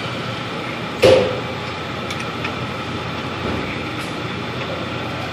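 Tools working at a car's oil drain plug: a sharp metallic knock about a second in, then a few faint clicks, over a steady background rumble.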